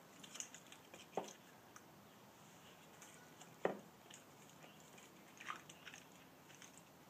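Split spruce pieces being fitted back together by hand: faint wooden rubbing, creaking and clicking, with two sharper knocks, the louder about three and a half seconds in.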